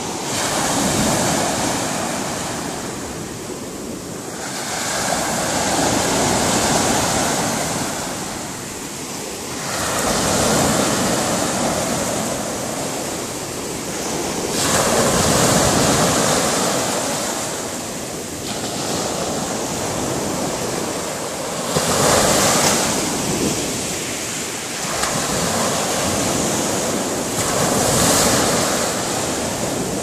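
Small sea waves breaking and washing up the shore in a rushing hiss that swells and ebbs every four to six seconds.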